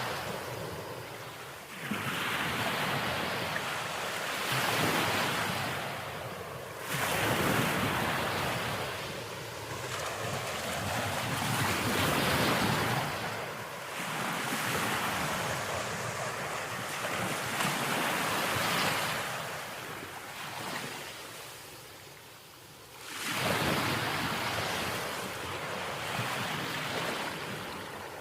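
Sea waves breaking and washing in one after another. Each surge rises sharply and fades away, with a new one every three to five seconds.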